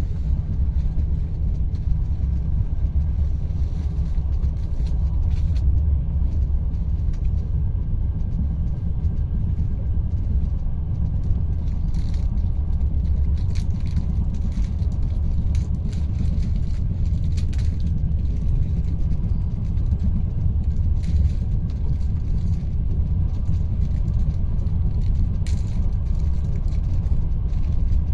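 Steady low rumble of a moving train heard from inside the carriage, with a few faint clicks scattered through it.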